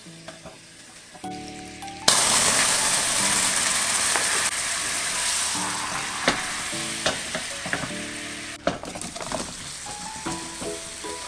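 Sugar caramelising in a frying pan, sizzling and bubbling; a loud sizzle starts suddenly about two seconds in and slowly dies down. Near the end apple wedges drop into the hot caramel with a few knocks.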